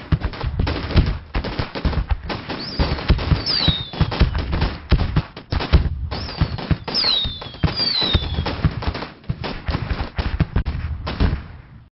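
Fireworks barrage: a dense run of rapid bangs and crackles with several falling whistles, stopping abruptly near the end.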